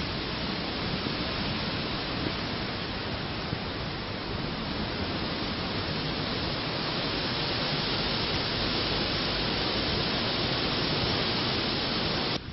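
A steady, even hiss that grows a little brighter partway through and cuts off abruptly at the end.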